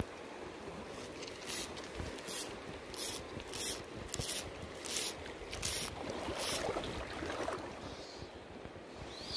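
Fly line being stripped in by hand through the rod guides: a row of about eight short hisses, evenly paced about 0.7 s apart, over the steady rush of the river.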